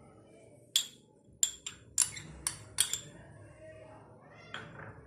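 A steel spoon knocks against a small glass bowl five times in about two seconds as chopped cabbage is tipped out of it.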